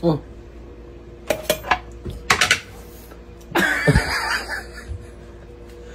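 Glassware and bar tools clinking as a cocktail is made: a few sharp clinks in the first half, then about a second of louder clattering and rattling.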